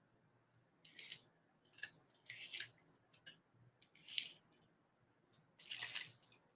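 A gold paint marker drawing short strokes on soft black plastic laid over crinkly aluminium foil: a string of faint, brief scratchy rustles, with a longer rustle of plastic and foil near the end as the hands move.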